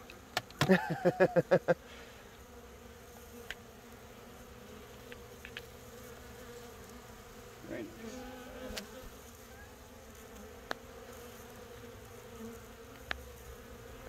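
Honeybees humming steadily from an open hive, their frames exposed. About half a second in there is a short run of loud, quick pulses, and a few light clicks follow later.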